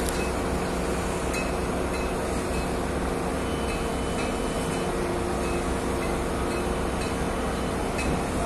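Heavy construction machinery running at a construction site: a steady mechanical rumble with a constant engine hum, from the cranes and plant working nearby.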